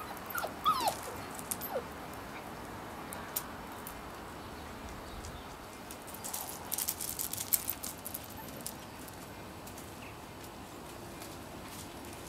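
Miniature labradoodle puppies whimpering: a few short, high whines that fall in pitch in the first two seconds. About six seconds in comes a burst of quick clicks and rattles lasting a couple of seconds, the loudest part.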